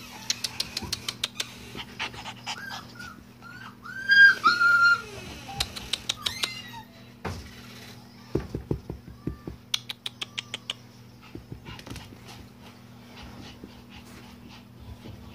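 Siberian husky puppies playing: short high-pitched yips and whimpers, loudest about four seconds in, among many quick clicks and knocks. A steady low hum runs underneath.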